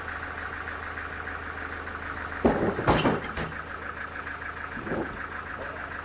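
An engine running steadily at idle with a fast, even rhythmic buzz, broken by a quick cluster of sharp knocks past the middle and one more knock near the end.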